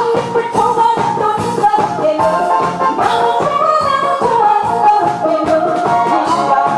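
A woman singing into a handheld microphone over a backing track with a steady beat.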